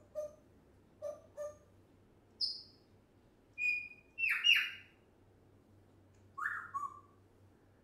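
African grey parrot making a string of short whistles and calls: a few low short notes first, then higher whistles, two loud downward-sliding squawks about halfway through, and a falling whistle near the end.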